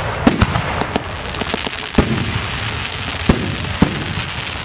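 Aerial fireworks shells bursting with sharp bangs, about five of them, the strongest about two seconds in. They sound over a steady background hiss.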